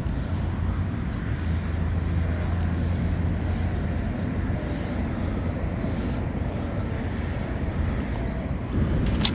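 Steady outdoor rumble with wind noise on the microphone; a low hum stands out over the first three seconds or so.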